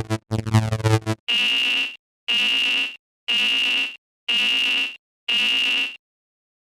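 Synthesized warning sound effect of a cartoon level crossing: two short low tones, then five identical high electronic beeps, about one a second, ending with a pause.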